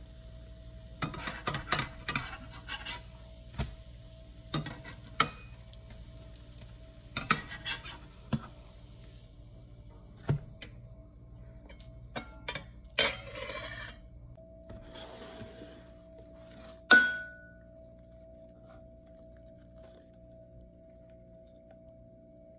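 French toast sizzling in a nonstick frying pan while a metal spatula scrapes and taps against the pan; the sizzle stops about nine seconds in. Then dishes clatter, with a loud clink and a brief ring about seventeen seconds in.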